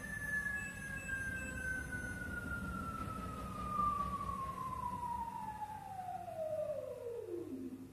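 Front-loading washing machine spinning down: a single motor whine glides steadily down in pitch as the drum slows, falling faster near the end and then stopping, while the low drum rumble fades away.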